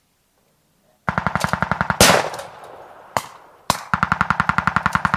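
Machine gun firing rapid bursts at about ten rounds a second, starting about a second in. About two seconds in, a single much louder bang with a long fading tail cuts across it, then one lone shot and another long, even burst.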